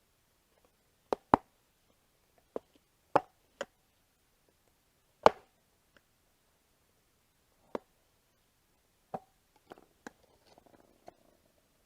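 Sharp, irregular clicks and knocks of flathead screwdrivers levering a stroller wheel's tire bead over the rim. The loudest comes about five seconds in, and there is a short scraping rustle near the end.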